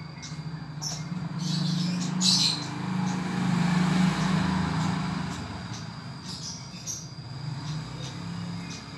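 Caged prenjak songbird, a small red-headed, grey-breasted bird, giving short sharp chirps: a few near the start, a loud cluster about two seconds in, and more around six to seven seconds in. A thin steady high tone runs throughout. Underneath, a low vehicle hum swells, is loudest around three to four seconds in, then fades.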